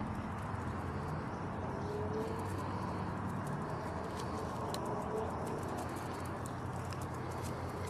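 Claws of small Yorkshire terriers ticking on a concrete patio as they trot about, over a steady low hum. There are a couple of soft, low hooting notes about two and five seconds in.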